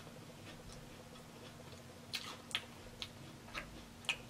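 Close-up eating of a fried chicken wing: a few sharp crunches and mouth clicks from chewing, mostly in the second half.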